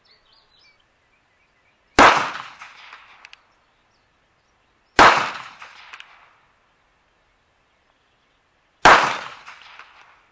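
Three pistol shots from a Ruger LCP's short 2-inch barrel firing .380 ACP rounds, spaced about three to four seconds apart, each ringing out and fading over about a second.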